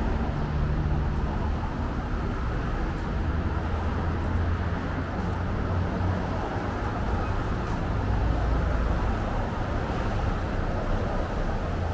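Steady street traffic rumble from passing cars, with no single event standing out. It cuts off abruptly at the end.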